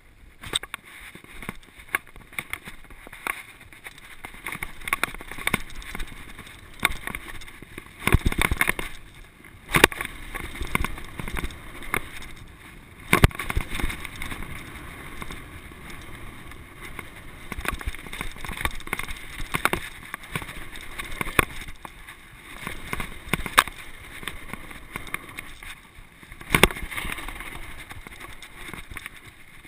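Mountain bike ridden fast over a dirt jump trail, heard from a camera on the bike or rider: a steady rush of wind on the microphone and tyre noise on dirt, with constant rattles and knocks from the bike and several harder thuds as it lands off jumps and bumps.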